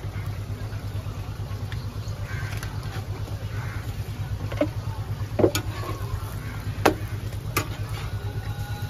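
Metal spatula scraping and tapping on a flat iron griddle as egg is spread over a dosa, with four sharp taps in the second half, over a steady low hum.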